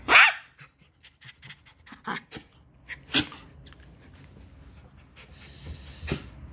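West Highland White Terrier giving a sharp bark at the start and another about three seconds in, with short panting breaths between and a weaker bark near the end.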